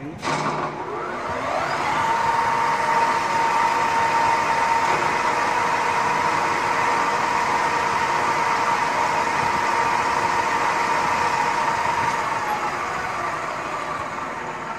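Centre lathe switched on with a click, its motor and drive whining up to speed over about two seconds, then running steadily with a steady high whine while turning a step on a round bar. About twelve seconds in the whine stops and the sound slowly fades as the chuck winds down.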